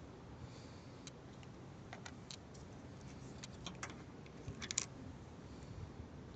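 Faint, scattered small clicks over a low hiss, with a short cluster of louder clicks near the end.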